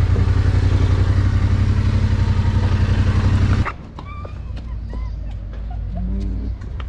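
Yamaha Ténéré 700's parallel-twin engine running steadily, then stopping abruptly a little over halfway through. Birds chirp faintly afterwards.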